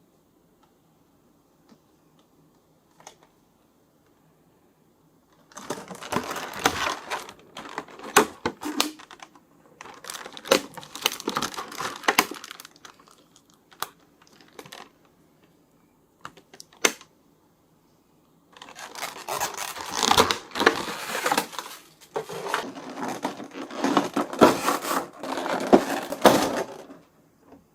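Plastic packaging crinkling and tearing in four spells of handling, with sharp clicks and ticks between them.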